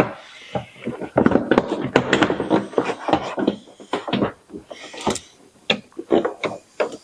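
Plastic car door trim panel being handled and fitted back onto the door: a run of knocks, taps and clip snaps, with a sharp snap about five seconds in.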